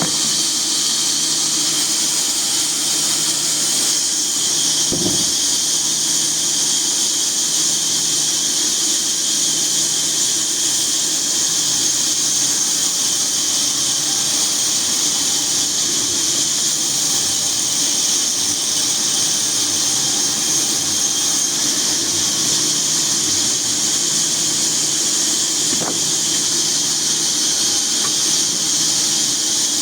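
Sawmill saw running through a teak log, a steady high-pitched hiss over a machine hum, with a short knock about five seconds in and another near the end.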